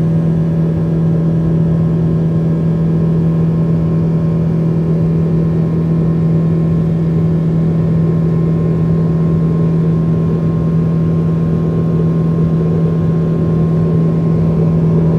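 Boeing 777-200ER's jet engines heard from inside the cabin during the climb after takeoff: a loud, steady drone with a constant low hum running through it.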